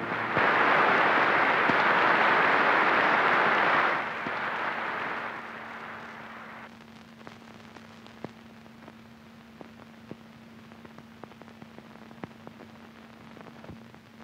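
Audience applauding as the orchestral music ends, full for about four seconds and then dying away over the next few. After that only scattered faint clicks over a steady low hum.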